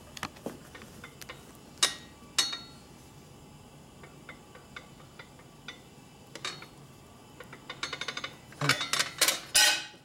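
Metal clinking and tapping as a springer fork and steel parts are handled against a steel machine table. A few sharp single clicks come first, then a quick run of small clicks about eight seconds in, and a louder clatter of strikes near the end.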